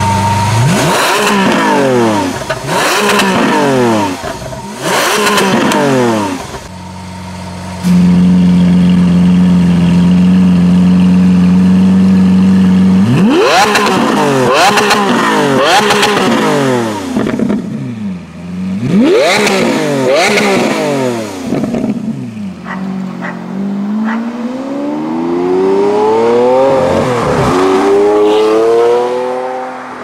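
Lamborghini Aventador's V12 engine with a Novitec exhaust, revved hard while standing: a run of quick blips rising and falling, then held at raised revs for about five seconds, then more blips with sharp cracks between them. Near the end the revs climb steadily, drop once and climb again, as when accelerating through a gear change.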